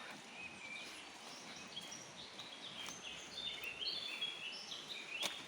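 Small birds chirping and singing in a string of short, high notes, over faint steady outdoor noise.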